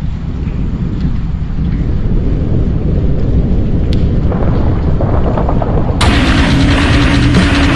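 Intro of a slowed-down band demo recording: a dark, rumbling noise swells steadily louder. About six seconds in, a dense, heavy wall of band sound comes in suddenly with a steady low drone under it.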